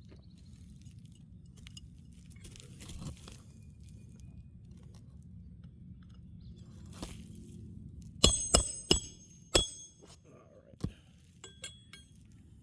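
Hammer blows on roofing nails in an asphalt-shingle roof, the nails being worked loose to free a shingle. Four sharp strikes with a metallic ring come in quick succession about eight seconds in, followed by two lighter taps.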